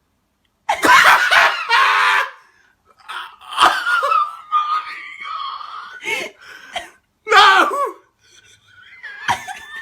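Hysterical wheezing laughter fit: loud shrieking bursts of laughter starting after a short silent gap, with a long high-pitched wheeze in the middle and a shouted "No!" near the end.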